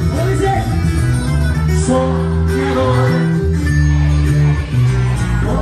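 Live band music played on stage through the sound system: steady bass-guitar notes under acoustic guitar.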